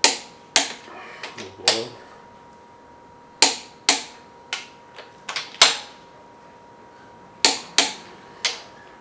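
Torque wrench clicking sharply, about ten separate clicks at irregular intervals, as cylinder head bolts are tightened to the first-stage torque of 50 newton metres; each click is the wrench signalling that a bolt has reached the set torque.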